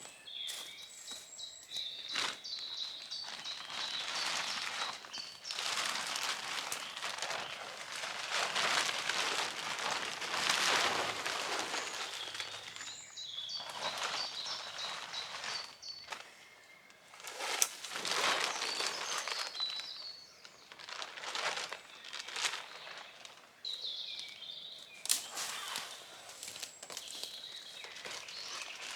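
A tarp rustling and crinkling in irregular spells as it is lifted over a ridge line and handled, with birds chirping in the background.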